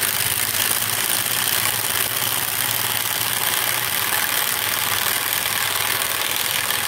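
Pneumatic drill on an air hose running steadily at speed, driving a screw into a thick wooden board, with a strong airy hiss over its whir.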